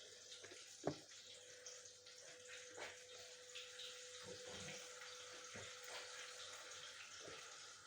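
Faint steady sizzle of chicken drumsticks deep-frying in hot oil, with a few light knocks, the sharpest about a second in.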